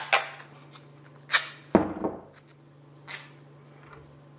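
Grey duct tape pulled off the roll in several quick rips, with a dull knock about two seconds in.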